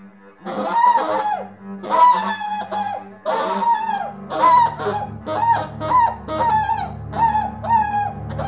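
Tenor saxophone playing a run of short notes, many bending down in pitch, over a bowed double bass; about three and a half seconds in, the bass settles into a steady low drone beneath the saxophone.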